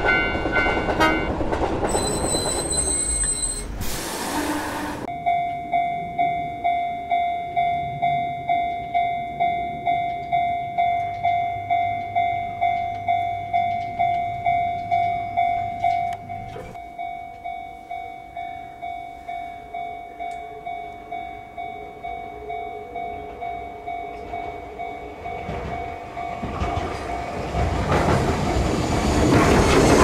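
Japanese level-crossing warning bells on the Enoshima Electric Railway clanging steadily at about two strokes a second. Near the end an Enoden train approaches and passes the crossing, its rumble and wheel clatter growing loud over the bells.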